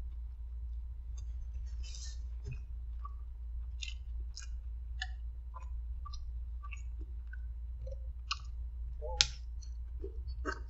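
Close-up chewing of a roast beef sandwich: scattered wet mouth clicks and smacks, with one sharper smack about nine seconds in, over a steady low hum.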